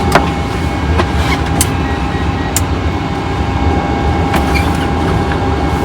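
Steady rumble and hiss of a parked airliner's cockpit systems before engine start, with a thin steady hum and a few light clicks.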